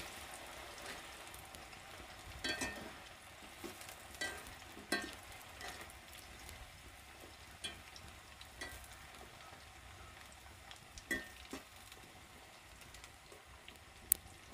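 Raw plantain slices deep-frying in hot coconut oil in a wok, a steady faint sizzle. A metal slotted spatula stirring them gives a few scattered scrapes and clinks, with a sharp clink near the end.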